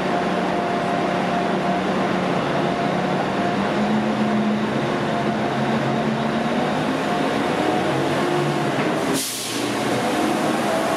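DSB IC4 diesel multiple unit pulling out of the station, its diesel engines running with a steady drone whose pitch rises slightly about four seconds in as it gathers speed. There is a short swish just after nine seconds.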